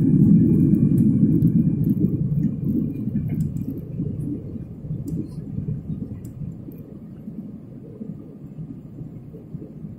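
Airliner cabin noise in the climb just after takeoff: a loud low rumble of jet engines and rushing air that fades gradually over the first several seconds, then settles at a lower level.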